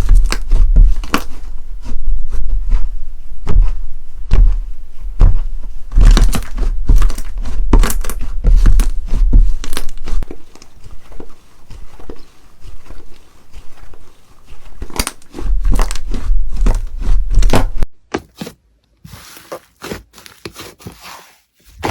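Slime being squeezed and pressed by hand close to the microphone: a dense run of crackles, pops and low thuds. About eighteen seconds in it drops suddenly to softer, sparser crackling.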